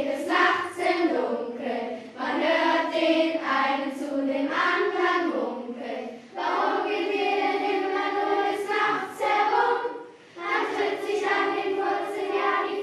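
A group of children singing a song together, in several sung phrases with short pauses between them.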